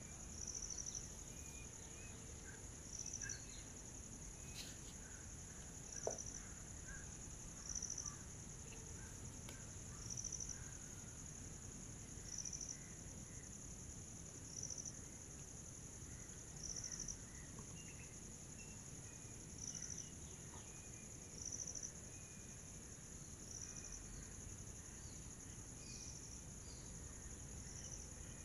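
Insects trilling steadily and high-pitched, with a louder chirp pulsing about every two seconds. A single sharp click comes about six seconds in.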